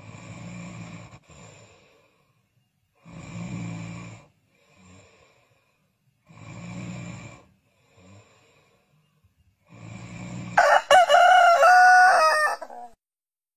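A person snoring in slow, even breaths about every three seconds, then a rooster crows once, a long, loud call near the end.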